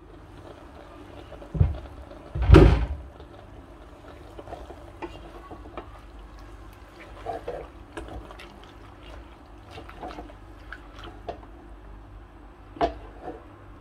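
Liquid poured from a bottle into a pot of raw beef pieces, with one loud, brief splash or knock about two and a half seconds in. Light clicks and knocks from the pot and spatula follow as the meat starts to cook.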